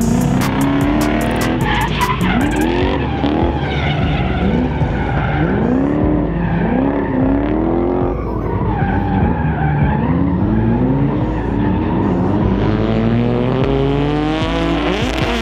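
V8 drift truck sliding: the engine revs up and drops back again and again, with tyre squeal from the spinning rear tyres. Background music with a steady bass line runs underneath.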